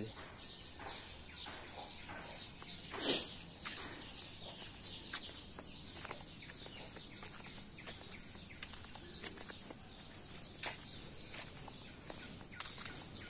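Small birds chirping in a quick run of short, high, falling notes, several a second, fading after the first half. Scattered crunches and knocks of footsteps on dry leaves and bare earth come through it, the loudest about three seconds in and near the end.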